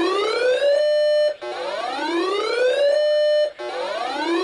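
Electronic whoop siren used as an alert tone. It climbs in pitch, holds the top note briefly, then cuts off, repeating about every two seconds.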